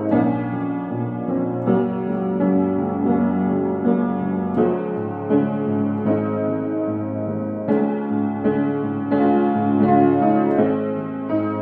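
Solo piano music: a steady, flowing line of chords and notes, with a new note struck roughly every three-quarters of a second.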